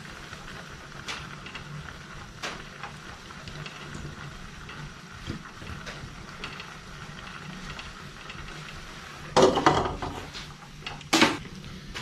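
Pot of instant noodles simmering on a portable gas burner: a steady low hiss and bubbling with a few faint clinks. Near the end comes a short clatter, then a sharp clank as the steel lid goes onto the pot.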